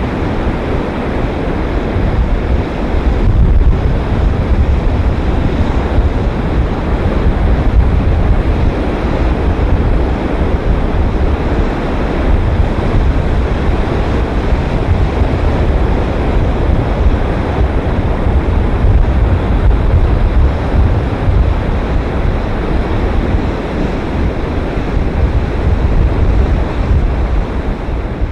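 Pacific Ocean surf on a sandy beach: a continuous wash of breaking waves with a deep rumble, rising and falling in slow swells.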